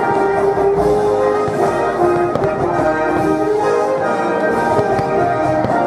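Orchestral music with brass, held notes changing every second or so, with a few faint bangs of aerial firework shells bursting underneath.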